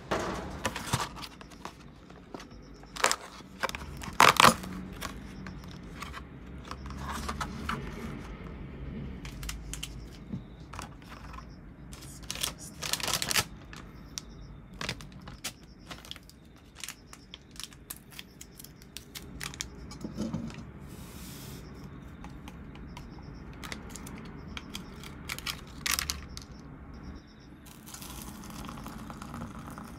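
Irregular clicks, knocks and scrapes of objects being handled, with the loudest knocks a few seconds in and a longer burst of scraping or tearing about halfway through.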